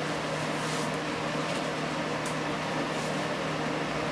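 Steady background hum and hiss of the room: an even fan-like noise with a low constant hum under it, and a couple of faint ticks.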